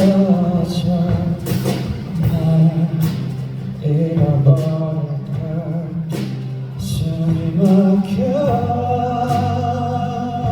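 Live pop ballad: a singer holding long, wavering notes over a band's steady low accompaniment.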